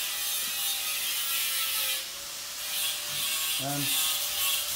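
Rubbing and handling noise of a hand-held phone being moved about, over a steady hiss, with a short murmur of a voice about three and a half seconds in.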